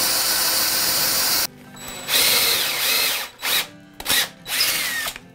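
Cordless drill with a twist bit boring up into the wooden underside of a workbench through a vise's mounting hole. It runs steadily, stops abruptly about a second and a half in, then runs again for over a second and gives several short bursts on the trigger.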